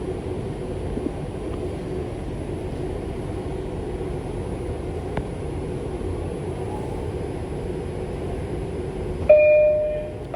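New York City subway train rumbling steadily in the station, with a couple of faint clicks, then near the end one short, loud horn toot that fades out over about a second.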